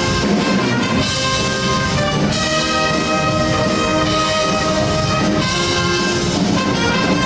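Show choir band playing an instrumental passage: a brass section holds chords over a steady drum beat.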